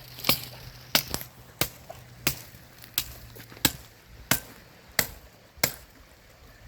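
Steady chopping: nine even strokes, about one every two-thirds of a second.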